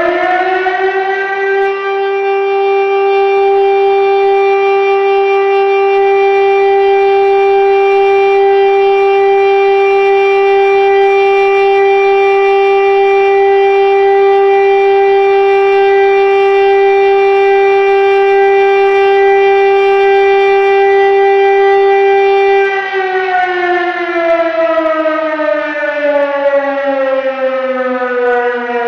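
Motor-driven rotary siren sounding the fire alarm signal. It winds up to full pitch in the first second or two, holds one loud, steady wail for about twenty seconds, then, switched off, winds slowly down in pitch to the end.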